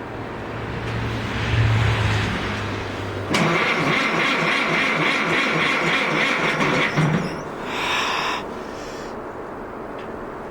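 Farmall MD tractor's four-cylinder engine being cranked on a cold start and failing to catch. A steady low turning sound gives way, about three seconds in, to a louder, evenly repeating cranking that lasts about four seconds, followed by a short burst and then quieter running.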